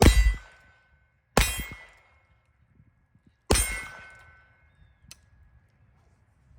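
Three shots from a Heritage Rough Rider Rancher .22 LR single-action revolver carbine, spaced about a second and a half and then two seconds apart. Each is a sharp crack with a short metallic ring dying away behind it. A faint click follows about five seconds in.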